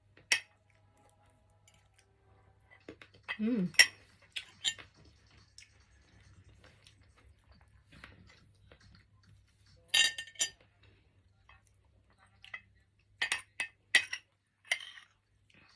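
Cutlery clinking against dishware in a series of sharp, short clinks: one at the start, a few about four seconds in, a pair about ten seconds in and a cluster near the end.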